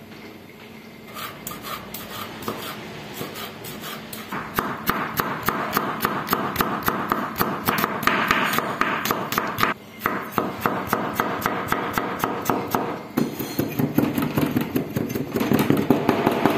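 Chef's knife chopping red onion and garlic on a wooden cutting board: rapid, even knocks of the blade striking the board, with a brief pause just past halfway and a faster, louder run near the end.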